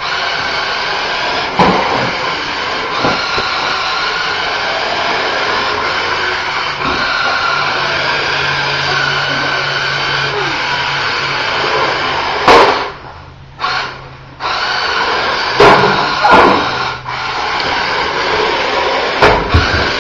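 Toy remote-control car's small electric motor whirring steadily as it drives, cutting out briefly twice around the middle. Several sharp knocks come in the second half.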